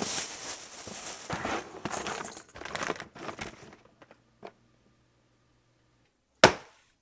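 Plastic crinkling and rustling as plastic bags and packaging are handled and rummaged through, dying away after about three and a half seconds. One sharp bang near the end is the loudest sound.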